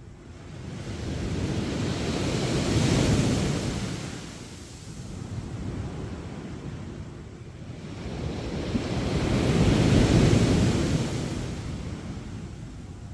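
Sea waves breaking on a beach: two waves rush in, each swelling to a peak and then washing back and fading, about seven seconds apart.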